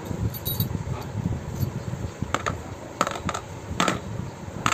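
Small metal parts from a starter motor's Bendix drive (steel washers, bushings and a ring) clinking against each other and against a plastic tub as they are handled and set down. Several sharp clinks come mostly in the second half.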